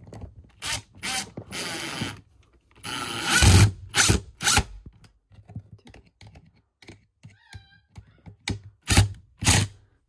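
Screws being driven to fasten a chrome closet-rod flange to a wooden shelf: short runs of driving in the first four seconds, and sharp clicks and knocks of metal on metal and wood throughout.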